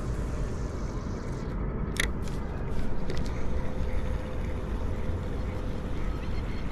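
Steady wind rumble on the microphone, with a sharp click about two seconds in and a few lighter clicks after it from a spinning fishing reel as a metal slug lure is cast and wound in.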